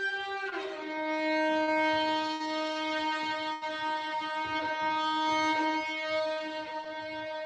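Solo violin bowing a long sustained note. It steps down from a higher note about half a second in and then holds the lower pitch steadily.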